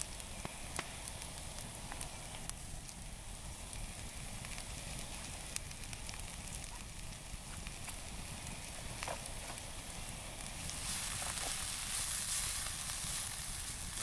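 Diced meat and vegetables sizzling in a frying pan over a campfire, with small crackles and pops from the fire. The sizzle grows louder and hissier about ten seconds in.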